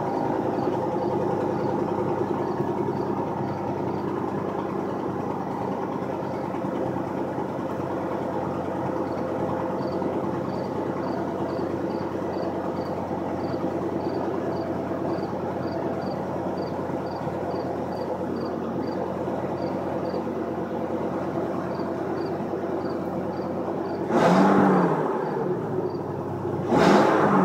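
2008 Ford F250's 6.8-litre Triton V10 idling steadily from the exhaust, still cold from an overnight sit. Near the end it is revved twice, briefly.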